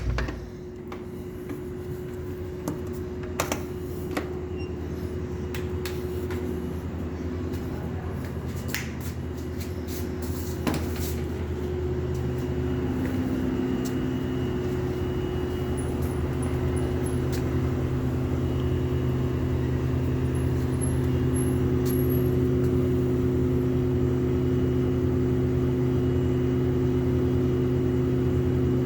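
Lloyd air conditioner's outdoor unit running with a steady multi-tone hum, likened to a train horn: the high-pitched humming fault that two service visits have not cured. The hum grows louder about halfway through, and a few sharp clicks sound in the first ten seconds.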